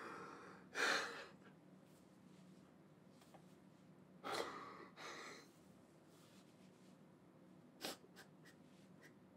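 A man crying into his hands, heard as a few faint sharp gasping breaths and sighs. The loudest comes about a second in, two more around the middle, and a short one near the end.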